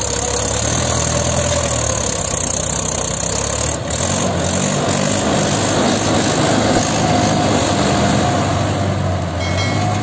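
Mahindra 585 DI tractor's four-cylinder diesel engine running steadily as it tows a trailer loaded with soil.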